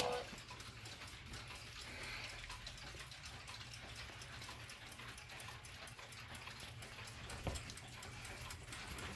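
A clock radio's sound cuts off at the very start. After that, many clocks on the shelves tick faintly and out of step with each other, with one soft knock about three-quarters of the way through.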